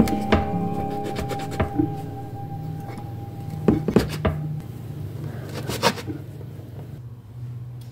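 Metal cookie cutter knocking and clicking against a wooden board as it is pressed through soft biscuit dough: a few sharp knocks, with clusters about four seconds in and near six seconds. Soft guitar music fades out in the first few seconds.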